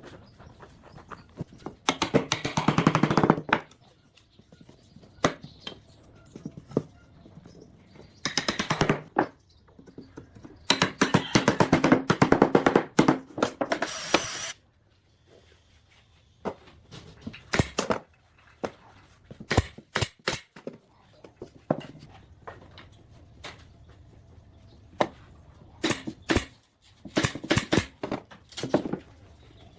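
Workshop tool noise: bursts of rapid knocking and clicking lasting from one to four seconds, the longest near the middle, with scattered single sharp clicks between and after.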